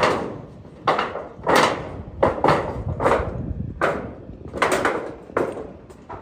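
Hammer driving long nails: about ten sharp, unevenly spaced strikes, each ringing out briefly.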